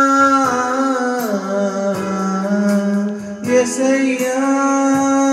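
Man singing a long, drawn-out sung line of a Telugu Christian song into a microphone over electronic keyboard accompaniment; the pitch falls about a second in and comes back up past the middle.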